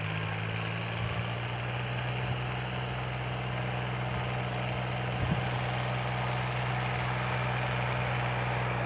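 Small four-wheel farm tractor's engine running steadily under load as it pulls a bed-forming implement through the soil, a constant low hum.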